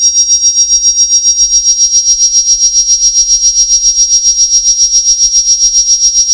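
Electronically synthesized high-pitched tone near 6 kHz inside a band of hissy overtones, pulsing evenly about six times a second, with a faint low rumble beneath.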